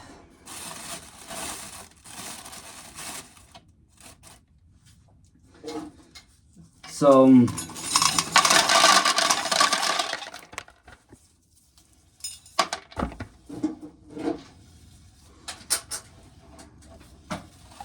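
Dried ear corn being shelled by hand: two bursts of rasping as kernels are rubbed off the cob and rattle into a pail, the second louder. Scattered clicks of single kernels follow.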